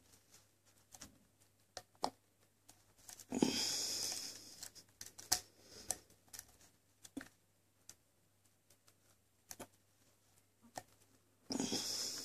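Light metallic clicks and ticks, irregularly spaced, from a lock pick and tension wrench working the pins of a 7-pin ASSA lock. Two louder rushing noises of about a second each break in, about three seconds in and near the end.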